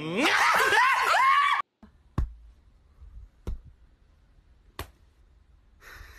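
A loud, high, wavering vocal cry that glides up and down in pitch and stops abruptly after about a second and a half. Then, over near quiet, come three sharp clicks about 1.3 s apart.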